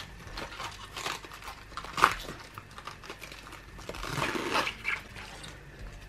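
An outer leaf of a white cabbage being peeled away from the head: crisp crackling and creaking as the leaf tears free, with one sharper snap about two seconds in and a rustle of the leaf later on.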